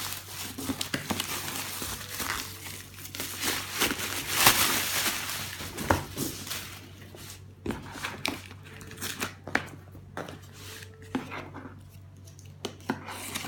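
Packaging being handled and crinkled during an unboxing: dense rustling and crinkling for the first half, loudest about four and a half seconds in, then sparser short rustles and light knocks.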